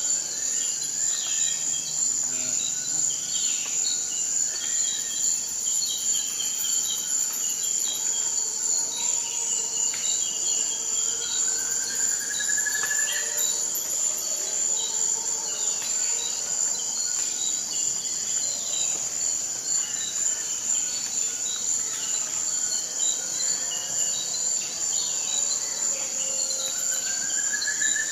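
Forest ambience: a steady, high-pitched chorus of insects with scattered bird calls, including a rising whistled call about midway and again near the end.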